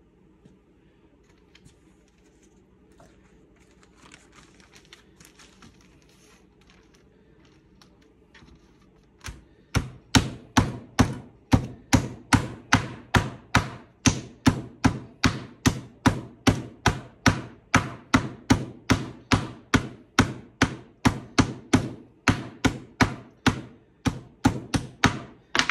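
Meat mallet pounding venison backstrap steaks sealed in a plastic bag on a cutting board to tenderize them. After some faint rustling and handling, the blows start about ten seconds in and go on in a steady, even rhythm of about two and a half a second.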